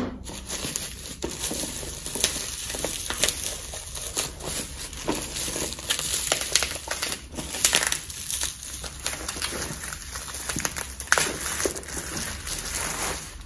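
Plastic bubble wrap being handled and peeled off a tape-sealed package by hand: a continuous run of crinkling with many small, sharp crackles.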